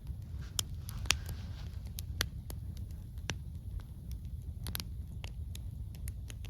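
Wood campfire crackling: irregular sharp pops and snaps, the loudest about a second in and again about two seconds in, over a steady low rumble.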